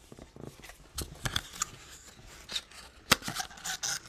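Cardboard packaging being handled: the white cardboard ear-tip insert is slid and pressed back into its small box. There are scattered rubbing scrapes and clicks, with one sharp click about three seconds in.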